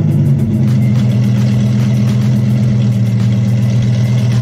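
Supercharged Lamborghini Huracán V10 idling high and steady just after a cold start, its pitch settling slightly in the first half second.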